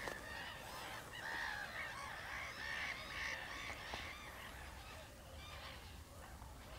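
A faint chorus of many short, overlapping animal calls, busiest in the first half and thinning out toward the end.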